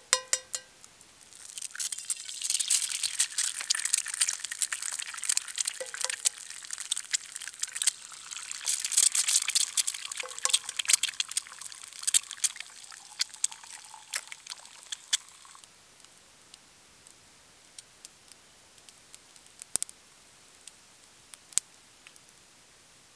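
Eggs cracked on the rim of a cast iron frying pan with a ringing tap, one after another, and dropped into hot fat that sizzles and crackles loudly. The sizzling stops about two-thirds of the way through, leaving only a few light clicks.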